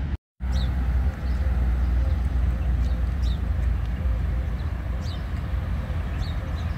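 Birds chirping now and then, short high calls, over a steady low rumble. The sound cuts out completely for a moment just after the start.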